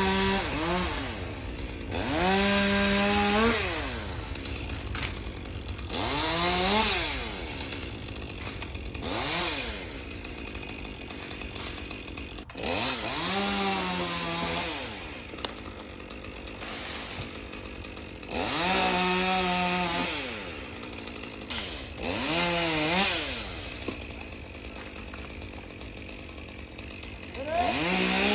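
Chainsaw revving up in short bursts about eight times, the pitch climbing and then falling back to idle between cuts, as limbs are cut off a pine tree during the climb.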